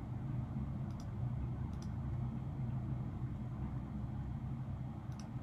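Steady low background hum, with about three faint mouse clicks spread through it.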